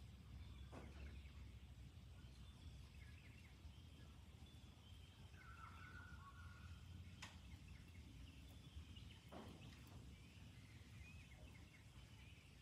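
Near silence: faint steady low background noise with scattered faint bird calls, a clearer short call about halfway through, and a few soft clicks.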